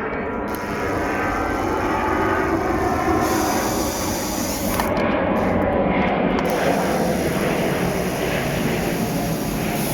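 Drill-driver running steadily with a flat-head bit, backing a slotted, rounded-off screw out of timber.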